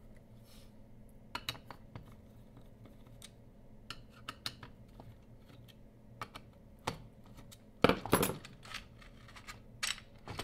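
Scattered small clicks and clinks as the spliced sections of a Glydea motorized curtain track are handled and pulled apart at their connector, with a louder clatter about eight seconds in.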